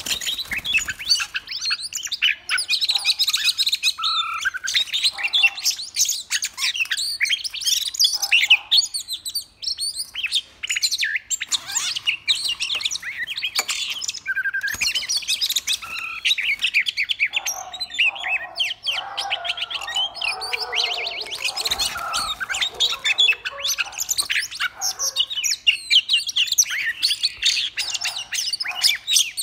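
Male oriental magpie-robin singing a fast, unbroken run of varied whistles and chirps, the competitive song of a caged bird singing against a rival. About two-thirds of the way through, lower, harsher notes come in for a few seconds.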